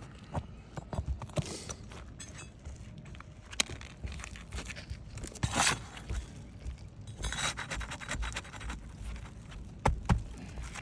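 Scraping and sharp metallic clicks of a tool working under asphalt roof shingles to pull roofing nails, with a longer scrape about halfway through and another a couple of seconds later.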